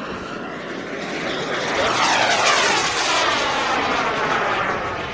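Turbine engine of a radio-controlled Comp-ARF Hawk model jet making a fly-past: a steady whine that swells to its loudest about two seconds in, then drops in pitch as the model passes.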